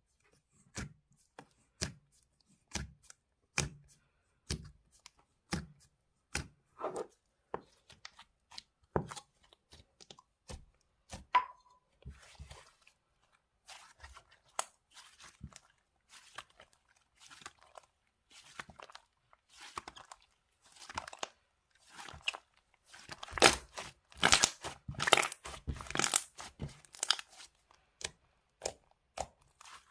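Mousse slime being pressed and poked by hand, giving sharp crackling pops about once a second, then a denser run of louder crackling and tearing sounds about three-quarters of the way in.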